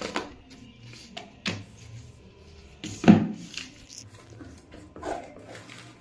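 Handling sounds from sorting a cluttered desk drawer by hand: papers, sticky notes and plastic packets rustling, and small objects knocking against the drawer. There are a few separate rustles and knocks, with the loudest knock about three seconds in.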